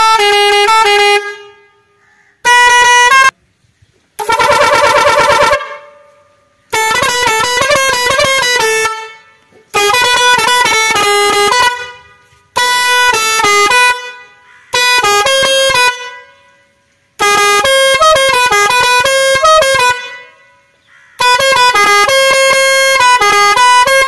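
Multi-trumpet musical air horn (pressure horn) sounding in about nine separate blasts of one to three seconds each. Each blast steps through several notes like a short tune, and one trills on a warbling chord.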